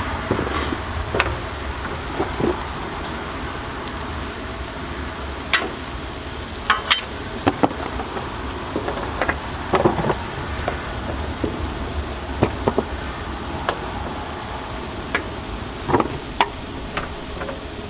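Sliced sweet potatoes sizzling gently on a hot Blackstone flat-top griddle, with scattered short taps and clicks as more slices are set down on it.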